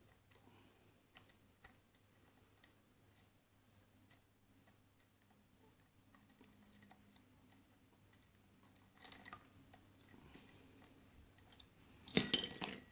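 Faint, scattered metallic clicks and ticks of a half-diamond lock pick probing the pins inside a Keso 2000 lock, with a short scrape about nine seconds in and a louder brief rattle of the pick and tension tool near the end.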